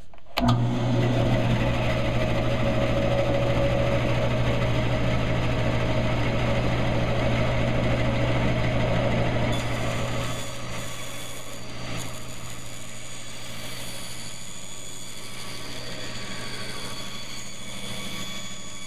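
Bandsaw switched on about half a second in, its motor and blade running with a steady low hum. About ten seconds in the sound grows quieter and changes as the blade cuts through a basswood block.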